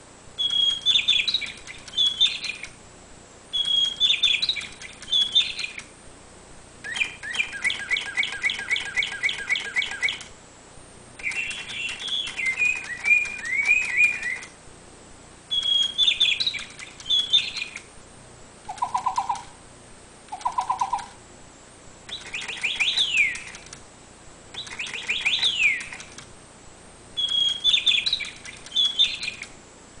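Sound-activated toy bird playing recorded birdsong through its small speaker: bursts of high chirping phrases with short gaps, including a fast even trill, a few short lower whistles and quick downward-sweeping calls. The same opening phrase comes back several times.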